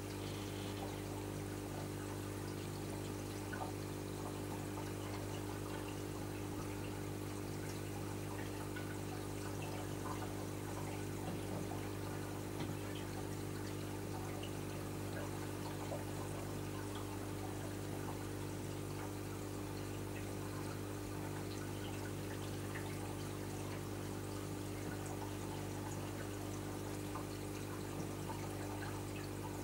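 Reef aquarium running: water trickling and pouring constantly over a steady low hum from its circulation pumps.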